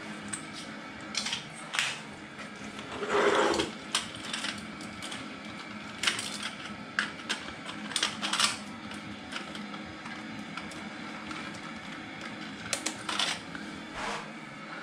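Plumbing parts and tools being handled and put away: irregular clicks, clatters and knocks, with a louder scrape about three seconds in, over a faint steady hum.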